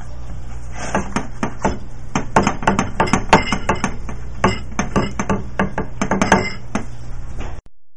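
Kitchen utensils clinking and knocking on kitchenware in quick, irregular strokes, several a second, over a steady low hum. The strokes stop about six and a half seconds in, and the sound cuts out briefly near the end.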